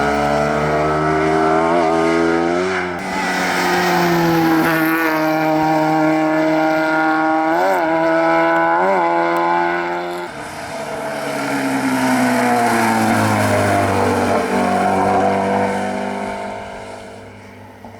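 Rally car engines at full race pace, revving hard with gear changes and falling in pitch as each car passes; two sharp blips of the revs come a second apart just past the middle, and the last car fades away near the end.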